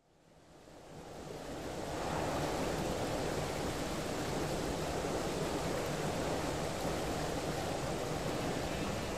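Steady rushing of sea waves, fading in over the first two seconds.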